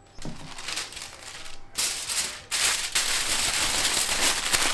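Aluminium foil crinkling and rustling as it is folded and crimped closed around a rack of ribs. It starts quietly and gets louder from about two seconds in.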